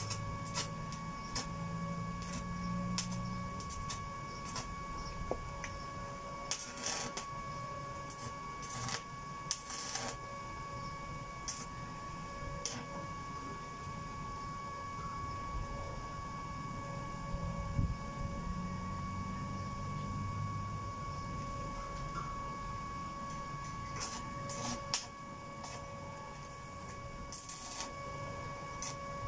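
Electric stick-welding arc crackling in short bursts of about a second as tack welds are struck on thin steel grille bars, with sharp pops in between.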